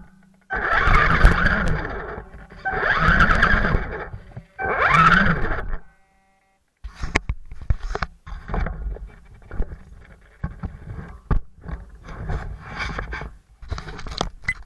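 RC crawler truck's electric motor and gear train whining in three throttle bursts, each rising then falling in pitch. After a short gap the truck creeps along with irregular clicks and rattles from its tyres and drivetrain.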